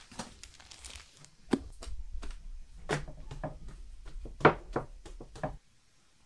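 Hands pressing and working bread dough on a wooden board: a run of dull knocks and thumps over a low rumble, the loudest about four and a half seconds in, stopping suddenly near the end.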